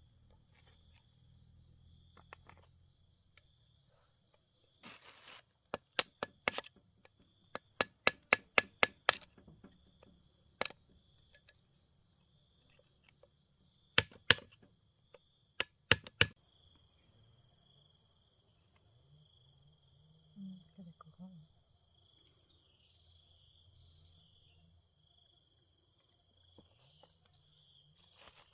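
Crickets chirping in a steady high drone, with a quick run of sharp knocks about five seconds in and a few more, loud, single knocks later.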